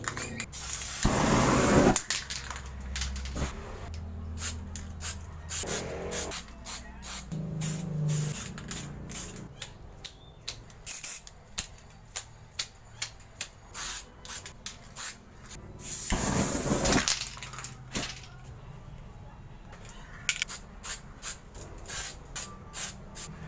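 Aerosol spray-paint cans hissing in two strong bursts, about a second in and again about sixteen seconds in. Many short, sharp clicks and taps fall between the bursts.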